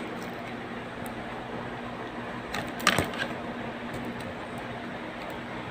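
Hands handling the subwoofer's control panel and cables, giving a small click at the start and a few sharp clicks with a knock about three seconds in, over a steady low hum and hiss.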